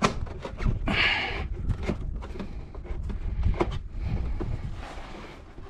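Hands working a new pleated panel air filter into a plastic airbox: scattered clicks and light scrapes of plastic, with a short rustle about a second in.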